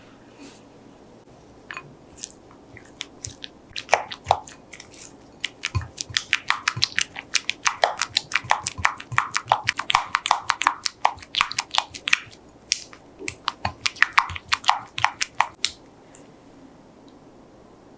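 A silicone spatula stirring melted chocolate in a glass bowl, working it until smooth: a quick, irregular run of clicks and taps that starts about two seconds in, is busiest in the middle and stops a couple of seconds before the end.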